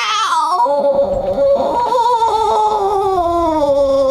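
A person's voice holding one long wail, high at first and sliding slowly lower in pitch, then breaking off just after the end.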